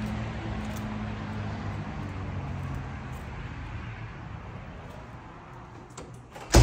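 Steady low hum of a vehicle engine amid outdoor traffic noise. The hum fades out about three seconds in, leaving quieter background noise, then a sudden loud bang right at the end.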